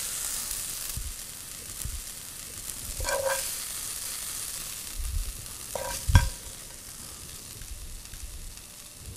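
Rice sizzling faintly in a hot frying pan as it is spooned out onto a plate, the hiss fading over the first few seconds. A metal spoon scrapes and clinks against the pan, with a ringing clink about three seconds in and a dull knock about six seconds in.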